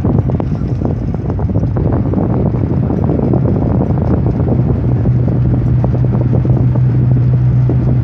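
Car driving along a paved road, heard from inside the cabin: a steady low rumble of engine, tyres and wind, with a low hum that grows stronger about five seconds in.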